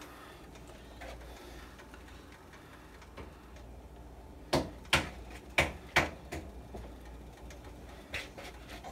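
Kitchen handling noises at a baking tray: four sharp clicks and knocks in quick succession about halfway through, then two fainter ones near the end, over a low steady hum.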